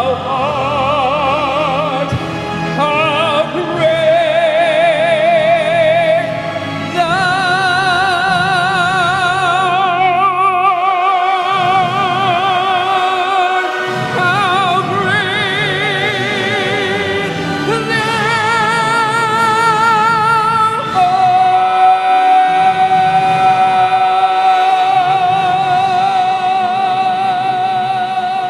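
Music: a solo voice singing in operatic style, long held notes with wide vibrato over accompaniment, closing on one long high note held for several seconds.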